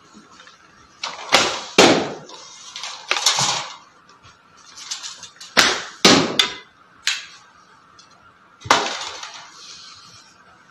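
35 lb fiberglass bow shot rapidly: sharp snaps of the bowstring on release and arrows striking the target, several shots a couple of seconds apart with a ringing echo after each.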